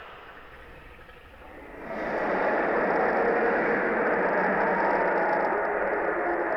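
Mapusaurus dinosaur roar sound effect: the tail of one roar fades out, then about two seconds in a long, rough roar starts, holds for several seconds and begins to tail off near the end.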